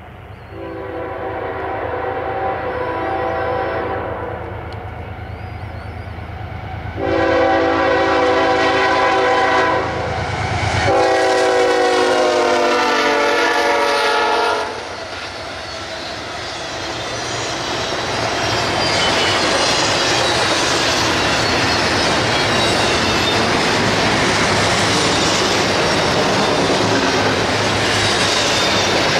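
CSX intermodal freight train passing. The lead diesel locomotive rumbles and sounds its horn in three long blasts, the last dropping in pitch as the engine goes by. Then comes the steady, loud rush of the cars' steel wheels on the rails.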